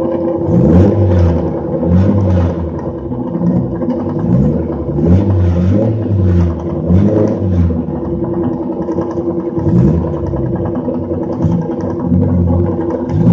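Alfa Romeo Alfetta GTV's standard 100 bhp engine being raced hard, the revs climbing and dropping over and over as it is driven through the gears and corners.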